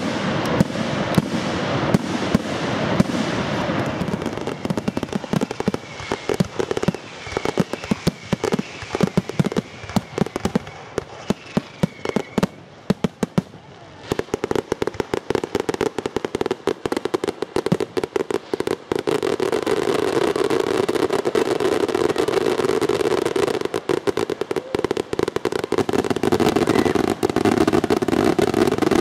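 Fireworks going off. A rapid run of bangs and crackles thins out to scattered reports in the middle. A dense, continuous crackling hiss of many shots runs through the last ten seconds.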